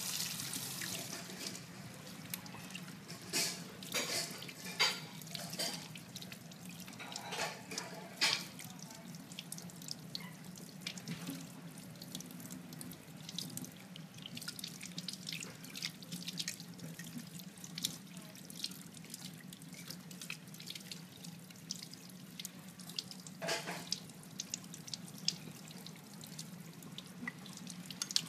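Kitchen tap running onto a squid held under it and into a bowl in a stainless steel sink, with irregular splashes and drips as the squid is rinsed and rubbed by hand.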